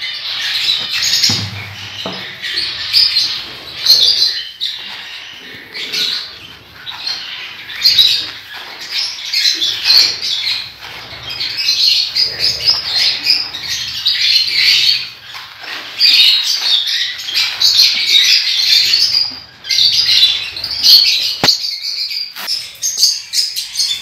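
Many caged birds chattering and chirping continuously, with the rustle of dry seed mix being stirred by hand in a plastic tub.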